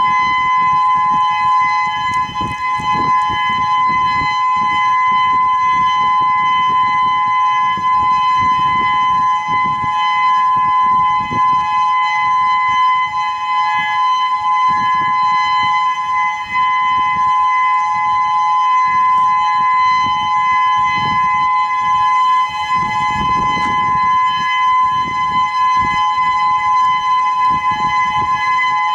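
Whelen 2016 electronic outdoor warning siren sounding its steady alert tone: a loud, constant two-note chord that neither rises nor falls.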